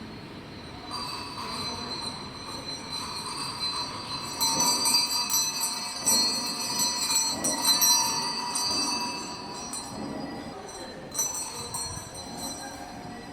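Cowbell clanking and ringing in irregular strokes, several bright metallic tones hanging on between hits; it builds to its loudest in the middle, dies down, then rings again briefly near the end.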